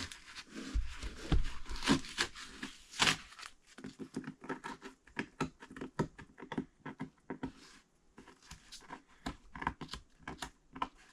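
Irregular crinkling and tearing sounds mixed with scattered clicks and knocks, as of close-up hands-on work with a crinkly material.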